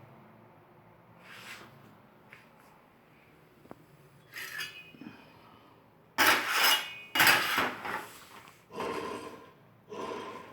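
Brastemp washing machine motor running in short bursts, each under a second, with a harsh scraping, rattling noise that is still there after its bearing was replaced. Two loud bursts come about six and seven seconds in, then two weaker ones.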